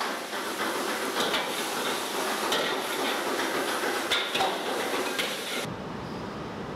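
Stir-frying in a wok: a metal ladle scraping and clanking against the pan over a steady sizzling hiss, with several sharp knocks. About a second before the end it cuts abruptly to a low steady hum.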